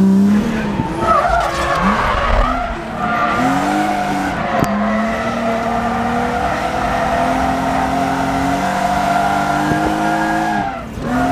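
Inside the cabin of a BMW E36 M3 drift car: the S52 inline-six revs up and down, then the rear tyres squeal in a long steady drift, with the engine held high underneath, easing off near the end.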